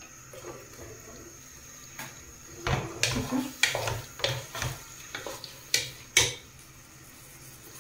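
Wooden spatula stirring a thick potato and aubergine curry in a pot, with a string of scrapes and knocks against the pot from about two seconds in until about six seconds in.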